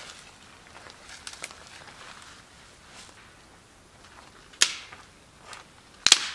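Footsteps rustling on dry forest-floor litter, then two sharp cracks of dry sticks snapping, about a second and a half apart.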